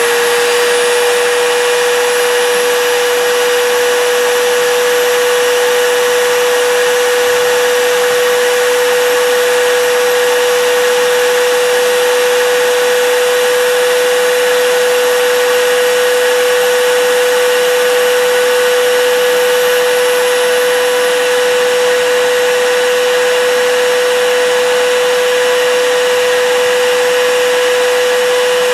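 Shop vac running steadily, a constant single-pitch motor whine over a rushing hiss. Its hose is sealed into a gas can so the vacuum draws transmission fluid from the pan up nylon tubing in the dipstick tube.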